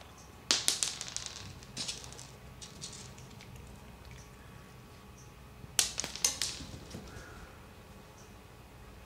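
Pieces of dry cat kibble landing and skittering on a laminate floor, heard as a few short bursts of sharp clicks and ticks.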